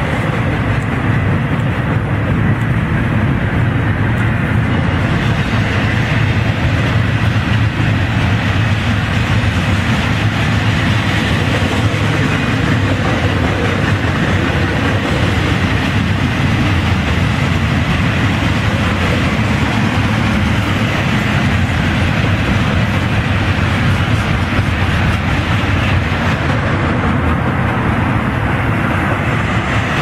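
Double-stack container well cars of a Florida East Coast Railway freight train rolling past: a steady, loud noise of steel wheels running on the rails, heaviest in the low end, with no horn sounding.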